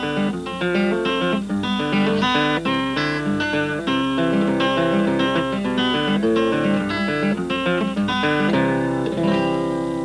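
Closing theme music: guitar picking a quick run of notes, settling into a held, ringing chord about eight and a half seconds in.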